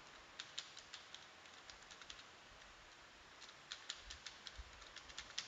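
Faint keystrokes on a computer keyboard as a password is typed: two runs of quick key taps with a pause of about a second between them.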